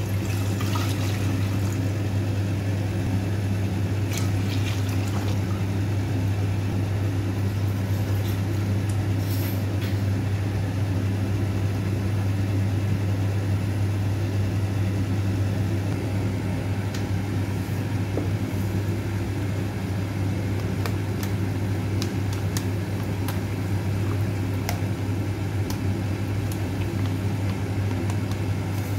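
A steady low mechanical hum, with water poured from a jug into a saucepan at the start. Scattered light clicks and taps of kitchen utensils on the pan come through it.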